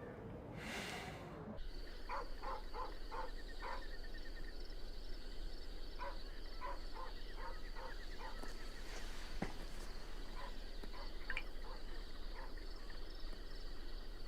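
Rural night ambience: a steady, high, pulsing insect chorus with short croaking frog calls repeated in irregular clusters, after a brief whoosh in the first second or so.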